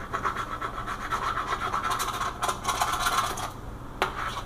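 Knife sawing back and forth to cut a piece off, a rapid run of scratching strokes that stops about three and a half seconds in, followed by a sharp knock about four seconds in.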